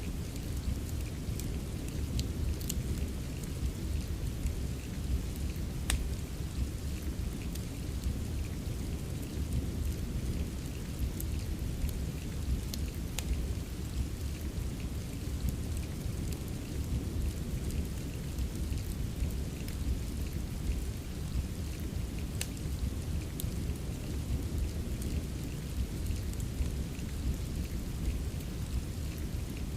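Steady rain with a deep low rumble underneath, and sharp pops of a crackling wood fire scattered every few seconds.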